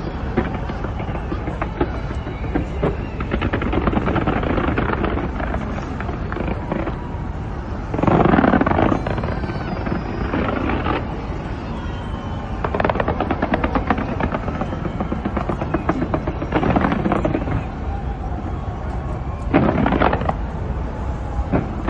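Fireworks display going off: a continuous rapid crackle of small pops, with louder volleys of bangs and crackling about a third of the way through and several more later on.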